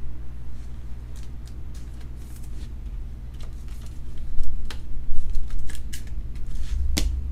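A trading card being handled and put into a clear plastic holder: a string of small irregular plastic clicks and crinkles, the sharpest a little before the end, over a steady low hum.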